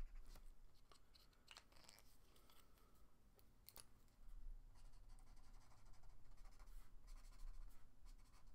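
Faint scratching and rubbing of a felt-tip marker nib on sketchbook paper as gray tones are blended, with a few soft clicks as markers are handled, over a low steady hum.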